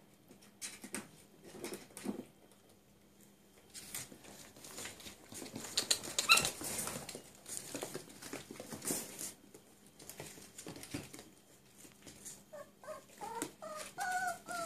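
Cirneco dell'Etna puppies playing on a tiled floor: scattered clicks and scuffles of paws and claws, a brief high squeal about six seconds in, and a run of short yips and whimpers near the end.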